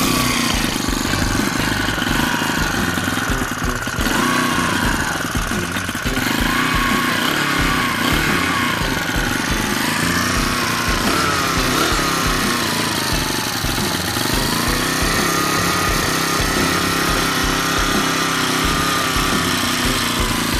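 Huasheng four-stroke motorized-bicycle engine running steadily at low speed, its pitch wavering up and down a little.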